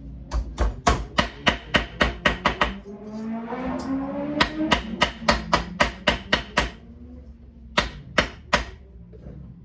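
Hammer tapping a cut-out rusted steel panel flat: a quick run of sharp strikes, about four or five a second, a short pause, a second run, then three spaced blows near the end.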